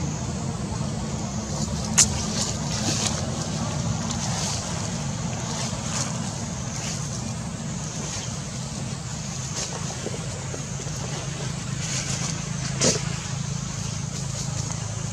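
Steady low rumble of motor-vehicle engine or traffic noise, with a faint high hiss over it and two sharp clicks, one about two seconds in and one near the end.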